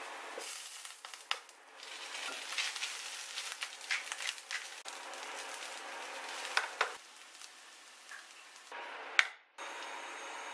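Minced garlic and then rice frying in oil in a nonstick pan: a steady sizzle with a spatula stirring, scraping and tapping against the pan. A sharp click near the end is the loudest moment.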